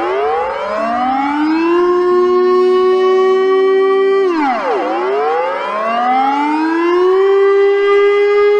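Civil defense siren wailing: the tone rises over about two seconds and holds, drops away about four seconds in, then rises and holds again.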